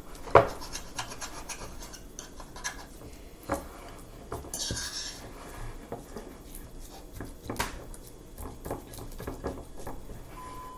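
A utensil scraping and knocking against a mixing bowl as a thick slime mixture is stirred and scraped off the sides, with irregular taps and a brief scrape about halfway through.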